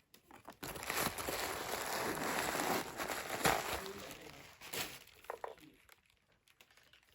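Packaging wrapping crumpled and crinkled by hand for about four seconds, with a sharp crackle about three and a half seconds in, then a few lighter rustles.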